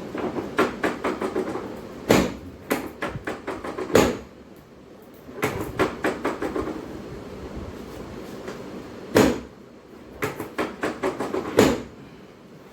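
Hands-on chiropractic adjustment on a treatment table: short runs of quick knocks, about five a second, broken by four heavier thumps.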